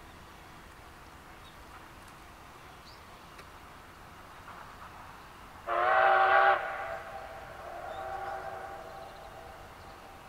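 Steam locomotive's whistle giving one loud blast of about a second, about halfway through, followed by a fainter trailing tone at a similar pitch that fades over the next two seconds.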